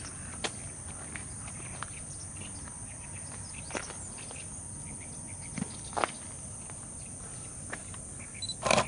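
Outdoor ambience: a steady high-pitched insect drone, with scattered faint clicks and taps and a short cluster of louder knocks near the end.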